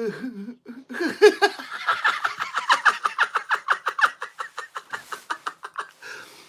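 A long fit of laughter: rapid, rhythmic bursts of about seven a second that slowly fade toward the end.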